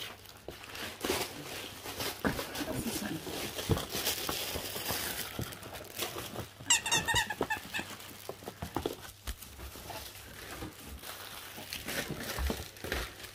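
A puppy rummaging among new toys in a cardboard box: plastic packaging and cardboard rustling and crinkling, with a brief run of high squeaks about seven seconds in.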